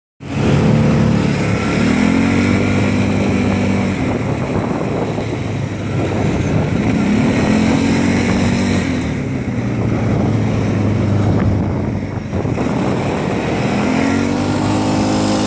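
Quad bike (ATV) engine running as it is ridden, its pitch rising and levelling off three times as it accelerates, about two seconds in, about seven seconds in and near the end.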